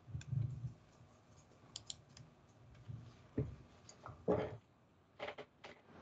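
Scattered computer mouse clicks and keyboard taps, with a few soft knocks among them, the loudest about four seconds in.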